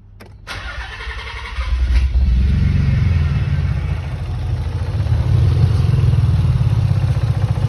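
Nissan 300ZX twin-turbo V6 engine coming up to speed about a second and a half in, then running steadily, freshly re-timed but misfiring on cylinder 5.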